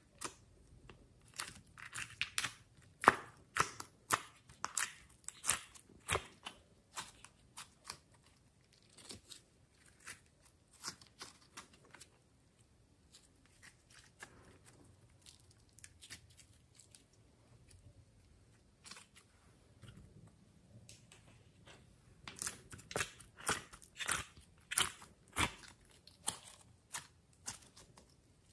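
Glossy slime being pressed, squeezed and stretched by hand, giving runs of sharp sticky clicks and pops with quieter stretches between, busiest in the first few seconds and again a few seconds before the end.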